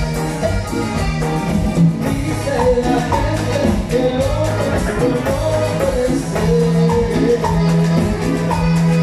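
Live band playing Latin dance music: a button accordion melody over guitar, keyboard, congas, timbales and drums, with steady scraped hand percussion.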